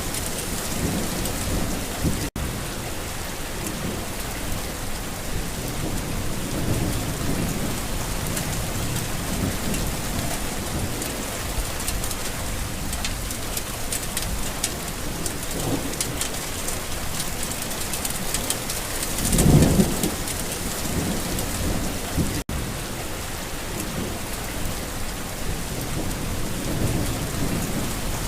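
Steady rain falling on a garden, with low rolling rumbles of thunder; the loudest rumble comes about nineteen seconds in. The sound cuts out for an instant twice.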